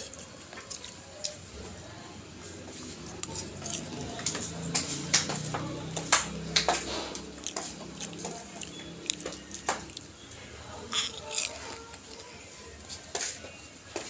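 A hand picking popcorn out of a glass bowl: irregular light rustles and sharp clicks as the popped kernels shift against each other and the glass.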